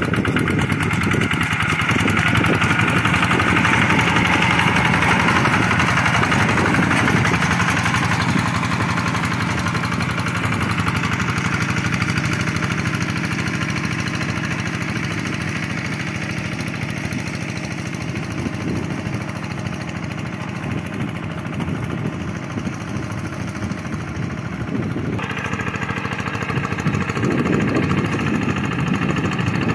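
Single-cylinder Kubota RD85 diesel engine of a Quick G1000 hand tractor running steadily under load as it drags a levelling board through a flooded rice paddy. It grows somewhat quieter past the middle and louder again near the end, with a sudden shift in tone about 25 seconds in.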